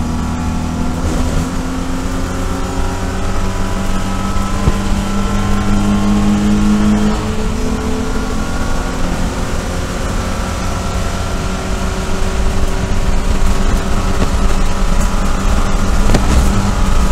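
SpecE46 BMW E46 race car's straight-six engine heard from inside the cockpit, accelerating hard, with one upshift about seven seconds in and the pitch climbing steadily afterwards.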